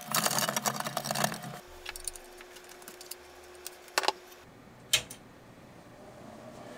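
Rattling and rustling of a computer expansion card and its grey ribbon cable being handled for about a second and a half. Then a faint steady hum, broken by two sharp clicks about a second apart.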